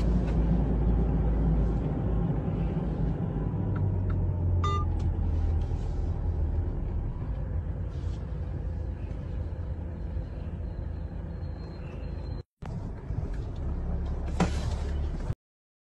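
Steady low rumble of a car heard from inside the cabin, with a few faint clicks. It drops out for a moment near the end, returns, then cuts off suddenly.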